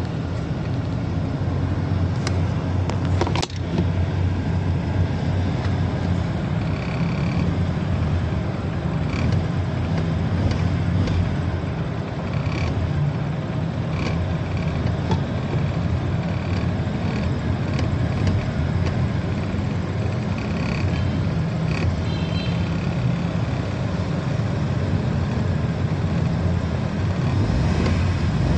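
Suzuki Mehran's small three-cylinder petrol engine running steadily with the accelerator pedal held down, a constant low drone heard from inside the cabin. A single sharp click sounds about three seconds in.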